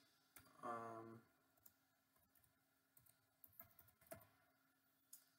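Faint, scattered computer keyboard keystrokes, about half a dozen separate key presses, after a short murmured vocal sound near the start.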